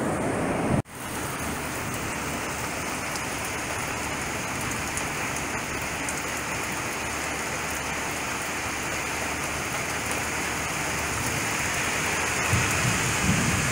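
Steady rain falling, after a moment of ocean surf that cuts off suddenly less than a second in.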